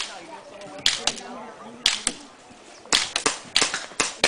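Airsoft pistols firing: a single sharp crack about a second in, another just before two seconds, then a quick volley of cracks from about three seconds on.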